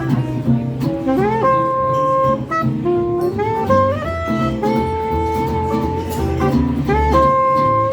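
Jazz music: a saxophone plays a melody of held notes, several of them scooped up into pitch, over a walking low accompaniment.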